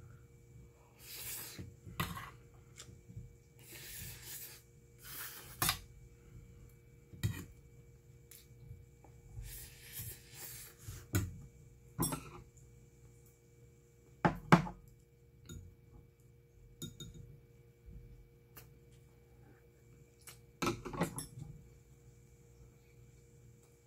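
Metal spoon clinking and scraping against a stainless steel pot of rice, several scattered clinks with the sharpest about halfway through, between stretches of close-up chewing.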